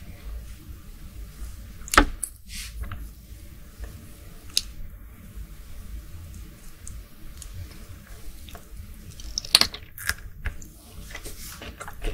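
Close-miked eating sounds of sauce-dipped cooked shrimp being bitten and chewed: soft, wet, squishy chewing broken by a few sharp clicks, the loudest about two seconds in and near the ten-second mark.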